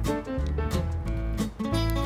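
Background music: an upbeat track with plucked guitar and a steady beat.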